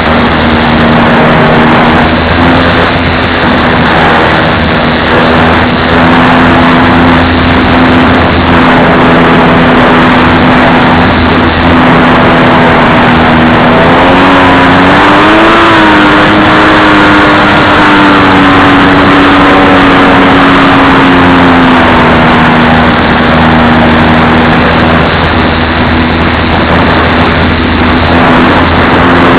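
Radio-controlled model plane's motor and propeller droning steadily. The pitch rises about halfway through, then eases back down to its earlier note.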